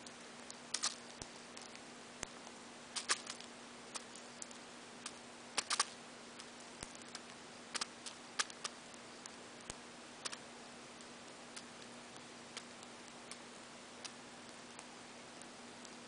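Budgerigar eating seed: irregular sharp clicks and cracks of its beak pecking and husking seeds inside a paper cup, busiest in the first ten seconds and sparser after that.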